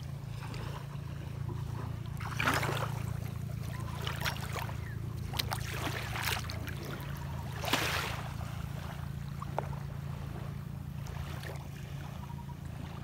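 Bare feet wading through shallow seawater at the shoreline, a handful of short splashes a second or two apart, over a steady low hum.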